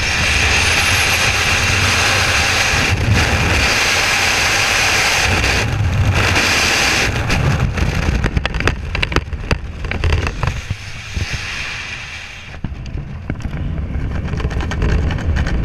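Freefall wind rushing over a helmet camera's microphone, loud and steady for about the first seven seconds. Then comes a run of irregular flapping and snapping as the parachute deploys and opens, and the wind drops to a lighter flutter under the open canopy near the end.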